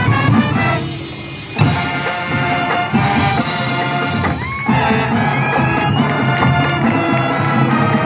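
High school marching band playing its field show: a brass section with drums. The sound drops back briefly about a second in, then the full band comes in loud again about a second and a half in.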